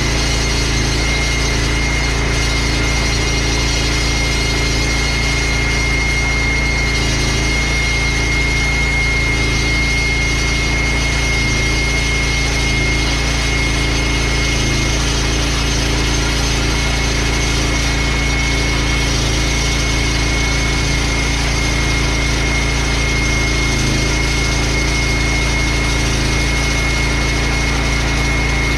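14-inch walk-behind concrete saw running at a steady speed as it cuts a concrete sidewalk: an even engine drone with a steady high whine over it.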